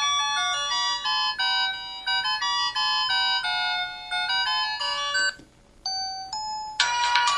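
Polyphonic ringtone melodies from an MS340 mobile phone's speaker. One melody plays and stops about five seconds in, a short two-tone sound follows, and a new, busier ringtone starts near the end.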